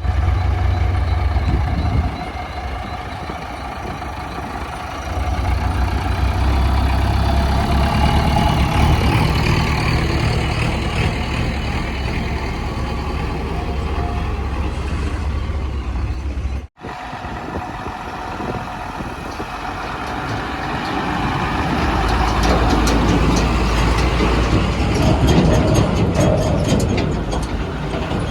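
Heavy diesel engine running with a strong low rumble that swells and eases in level, as on a working backhoe loader or tipper truck. The sound drops out completely for an instant about seventeen seconds in.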